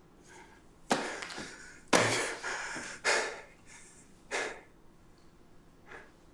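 A man taking several loud, sharp gasping breaths with pauses between them, the longest and loudest about two seconds in.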